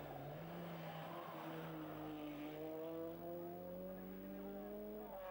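Race car engine pulling hard up a hillclimb: a single engine note that sags slightly, then climbs steadily in pitch as the car accelerates.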